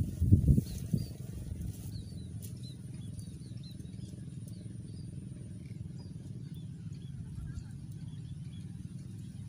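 Outdoor ambience: a steady low rumble under many faint, short bird chirps and a steady high insect whine, with a few bumps in the first second.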